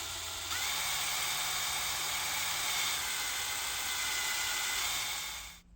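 Small high-speed drill motor spinning a 2 mm bit through acrylic. It comes up to a steady high whine about half a second in and cuts off suddenly near the end.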